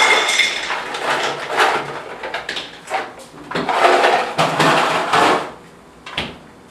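Ice cubes tipped from a plastic ice cube tray clattering into a glass mixing bowl, in several rushes, the longest about midway through, to make an ice water bath.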